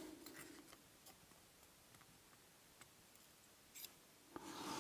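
Near silence with a few faint, light clicks: small metal lock pins and parts being handled.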